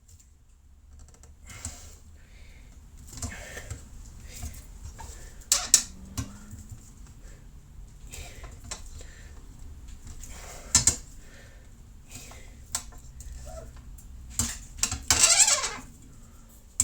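Scattered clinks and knocks of brass trumpet tubing being worked, with rubbing and scraping from a nylon piece pushed over the dents' high spots. A longer scraping stretch comes near the end.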